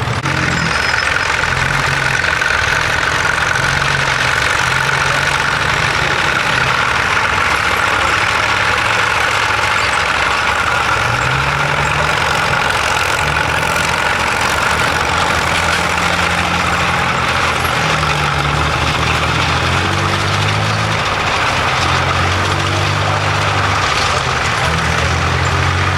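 A heavy engine running steadily, its low hum shifting in pitch now and then.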